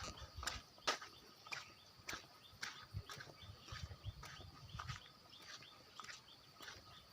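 Footsteps on hard, stony ground at a walking pace, about two crisp steps a second, over a faint steady high hum.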